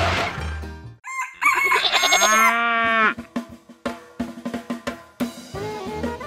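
A loud noise dies away in the first second, then a rooster crows once, its call falling in pitch at the end. Sharp drum strikes follow, and background music starts near the end.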